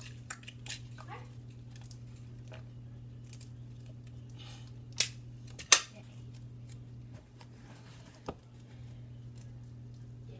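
Scattered sharp clicks and snips of handling tape and scissors, the two loudest close together about five seconds in, over a steady low hum.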